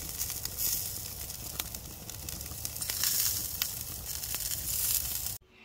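Cheese-topped burger patties sizzling on a grill grate over the flame: a steady hiss with scattered crackles and pops of fat.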